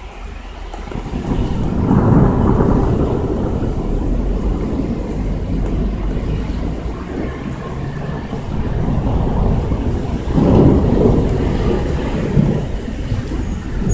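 Rolling thunder, a long deep rumble that builds about a second in, peaks near two seconds, and swells again about ten seconds in.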